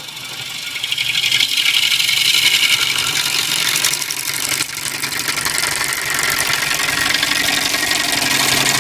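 A turning tool cutting into a cherry bowl blank spinning on a wood lathe. It makes a loud, steady shearing hiss with a fine rapid rattle, building up over the first second as the tool takes the cut.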